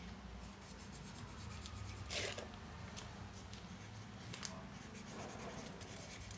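Felt-tip marker drawing on a folded paper boat: faint scratching strokes and taps of the tip on the paper, with a louder short tap or rustle about two seconds in.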